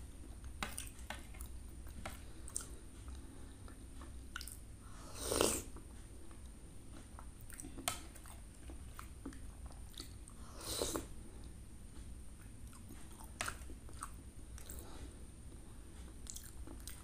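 Close-miked chewing and mouth sounds of someone eating soft, chilled kolak (banana, sweet potato and sugar palm fruit in coconut-milk broth), with scattered light clicks of a metal spoon on a plate. Two louder, longer mouth sounds come about five and eleven seconds in.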